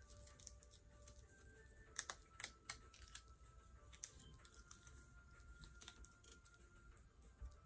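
Faint, irregular clicks and taps of long fingernails handling a small plastic memory card, bunched together about two to three seconds in.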